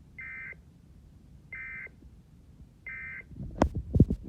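Emergency Alert System end-of-message tones: three short, buzzy digital data bursts about a second apart, which mark the close of the alert. Near the end comes a quick run of loud knocks and clicks.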